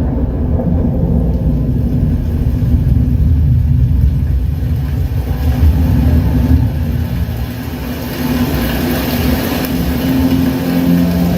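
Deep, heavy rumble with an engine-like character from a demo soundtrack played through a Zebronics Zeb 9530 5.1 soundbar. The rumble dips briefly about eight seconds in, and held musical notes come in near the end.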